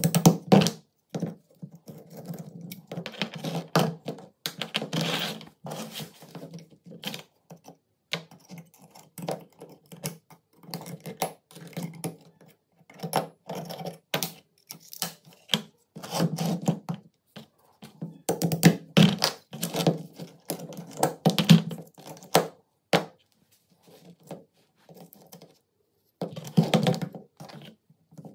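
Irregular clicks, taps and light metal clinks of a rusty gun receiver being taken apart by hand: small steel parts, pins, pliers and a hammer knocked and set down on a padded workbench. They come in short clusters with brief pauses.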